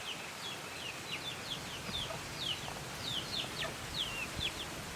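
Birds chirping: many short, high chirps that fall in pitch, several a second, going on continuously.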